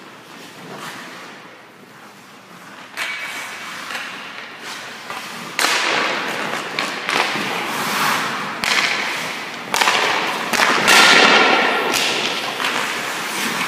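Ice hockey pucks shot with sticks and hitting the goalie's pads, the net and the boards: a series of sharp cracks and thuds from about three seconds in, each ringing in the arena, mixed with skates scraping across the ice.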